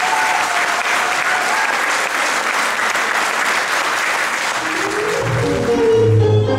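Audience applauding. About five seconds in, the applause gives way to tango music starting to play.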